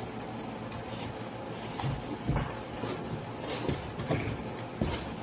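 Hands pressing, tapping and rubbing on a rigid foam insulation board on a workbench: a string of short knocks and scrapes, several a few seconds apart, over a low steady background.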